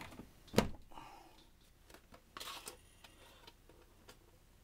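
Handling noise from a plastic toaster being turned over on a workbench: one sharp knock about half a second in, then a short scraping rustle and a few light clicks.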